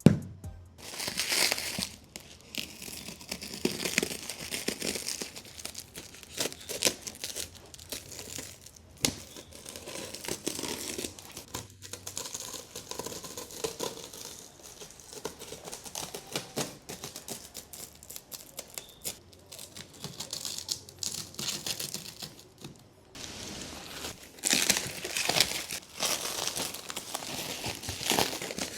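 Plastic packaging film and tape being torn and crumpled while a large cardboard carton is opened, in irregular crackly bursts with louder stretches about a second in and near the end.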